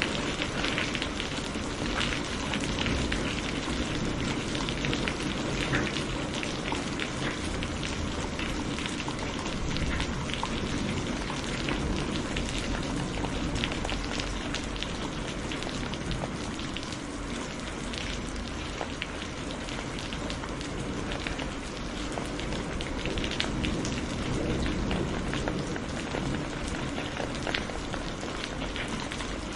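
Steady rain falling on a surface, a dense hiss made up of many fine, close drop ticks.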